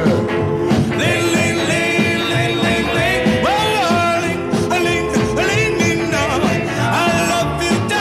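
1950s doo-wop record: a vocal group singing in harmony over a rhythm-and-blues backing band.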